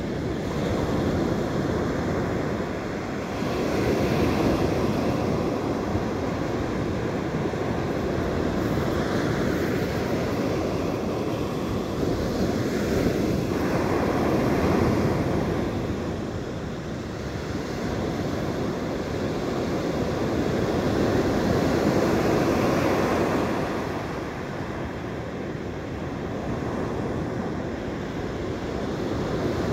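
Ocean surf breaking and washing up a sandy beach, swelling and easing every few seconds, with wind buffeting the microphone.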